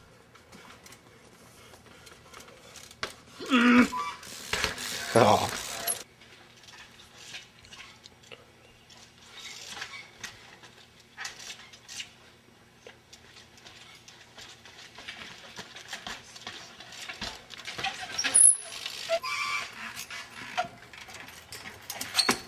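Trials bike hopping and balancing on a tree stump: scattered metallic clinks and knocks from the wheels, chain and frame, with a sharp knock late on. Short loud voice sounds come twice, about four and five seconds in.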